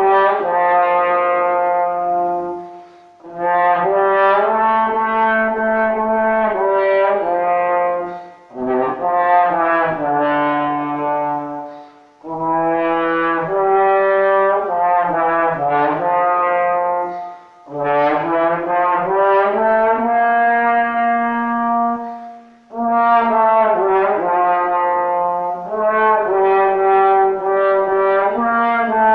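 Trombone playing a fado melody in phrases a few seconds long, with short breaks between them.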